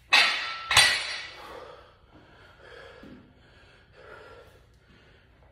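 Two loud metal clanks about half a second apart as a loaded barbell is picked up off the floor, with the iron plates ringing briefly after. Heavy breathing follows.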